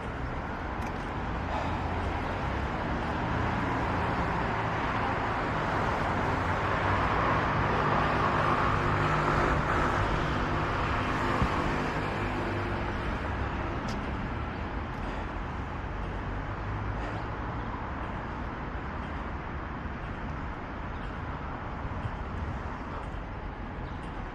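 Road traffic: a motor vehicle passes, its engine and tyre noise swelling to a peak about eight to ten seconds in and then fading, over a steady hum of traffic.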